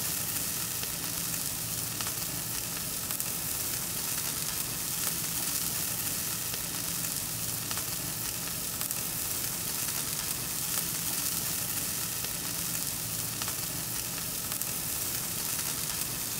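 Sirloin steak sizzling steadily on a charcoal grill, an even hiss with fine crackling.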